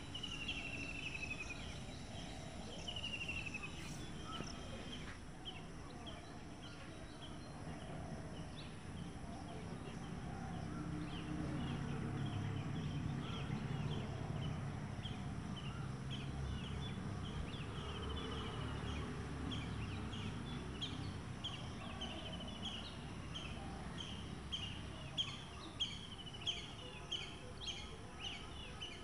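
Outdoor ambience with small birds chirping in quick short notes, more often in the second half, over a low rumble that swells in the middle.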